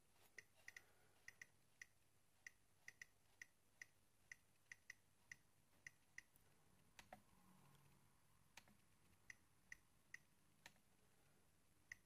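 Nest thermostat's outer ring being turned, giving a string of faint, quick, high-pitched clicks as it steps through the settings menu, with a few fuller clicks as the display is pressed to select.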